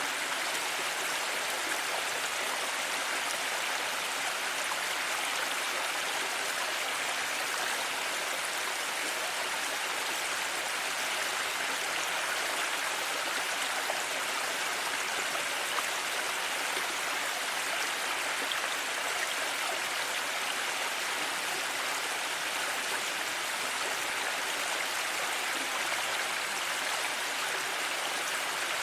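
Flowing water rushing steadily, as in a mountain stream: an even hiss with no separate splashes, calls or other events.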